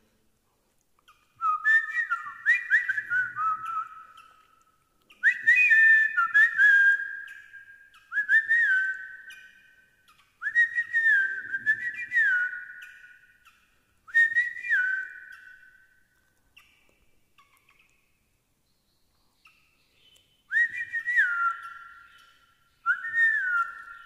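Recorded sooty-headed bulbul (kutilang) calls played from phone speakers: a short whistled phrase that steps from a higher note down to a lower one, repeated about every two seconds and overlapping at first, with a pause of a few seconds after the middle.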